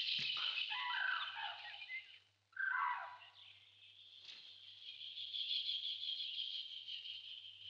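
Outdoor nature ambience: several short bird calls in the first three seconds over a steady high-pitched background chorus, with a single soft click about four seconds in.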